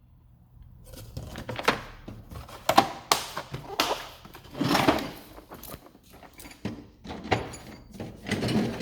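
Steel drawers of a Matco 4S toolbox sliding and bumping shut, with tools clattering and rattling, in a series of separate knocks and one longer rattle about halfway through.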